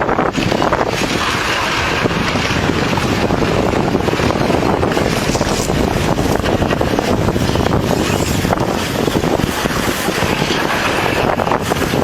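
Loud, steady rushing roar with strong wind buffeting the microphone.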